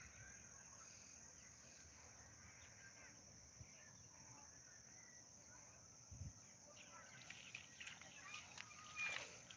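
Near silence: faint outdoor ambience with a steady high hiss, and faint rustles and clicks in the last few seconds.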